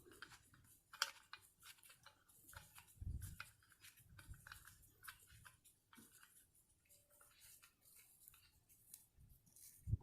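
Near silence with faint, irregular clicks and a soft low thump about three seconds in.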